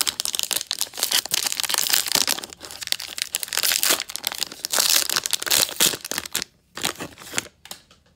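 Plastic wrapping on football trading card packs crinkling and tearing as it is ripped open: a dense crackle for about six seconds that thins to a few scattered crinkles near the end.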